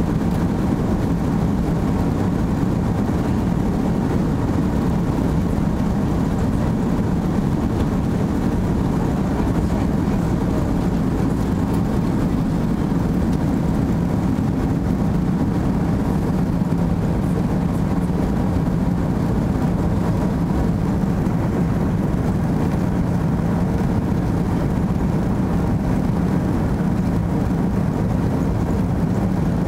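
Airbus A330 jet engines at takeoff thrust heard from inside the cabin behind the wing: a loud, steady rumble through the takeoff roll, lift-off and initial climb.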